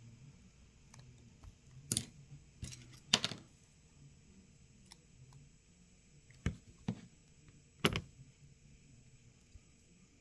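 Small hand tools and phone parts clicking and tapping together as a smartphone is taken apart: about six sharp clicks in two clusters, the loudest about three seconds in and another near eight seconds.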